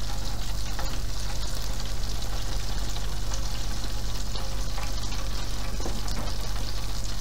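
Battered pineapple rings sizzling steadily in the hot oil of an electric deep fryer.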